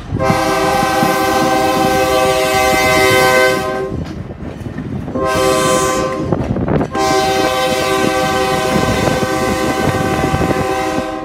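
Train horn sounding three blasts, long, short, long, as the train approaches a road grade crossing. Each blast is a steady multi-note chord over the low rumble of the moving train.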